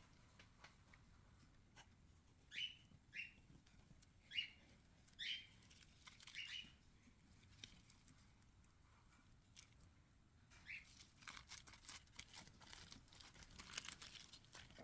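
A small bird chirping in the background, short falling chirps a second or more apart, then a run of faint light clicks and taps near the end.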